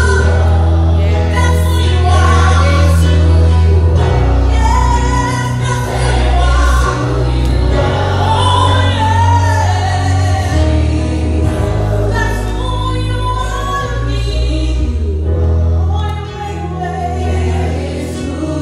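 Live gospel worship singing: a woman leads on a microphone with a group of backing singers, over an accompaniment of long held bass notes.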